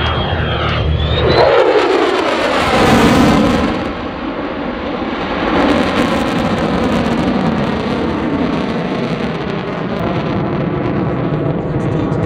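USAF F-35A's Pratt & Whitney F135 afterburning turbofan passing low in a tactical pitch. A falling whine sweeps down in pitch as it goes by, loudest about two to three seconds in, then settles into a steady jet rush as the aircraft pulls away.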